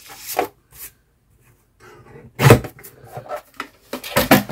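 Cards and paper scraps being handled: short rustles and taps, with one loud knock about halfway through and a quick cluster of taps and rustles near the end.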